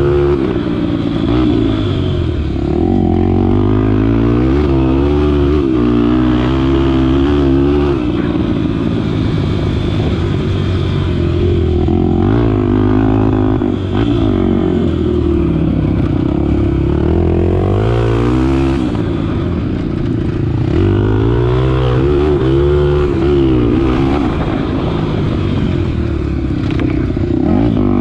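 Honda Tornado 250's single-cylinder four-stroke engine revving up and falling back again and again as the bike is ridden round a dirt track. The throttle opens and closes every few seconds.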